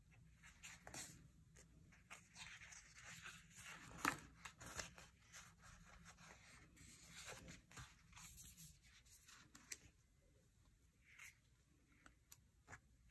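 Faint rustling and peeling of paper sticker sheets, with small clicks and taps; it quietens after about nine seconds, leaving a few light ticks.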